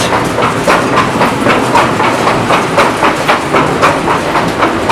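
Two pairs of millstones running in a working windmill, a steady grinding rumble with a rapid, regular clatter of about four knocks a second.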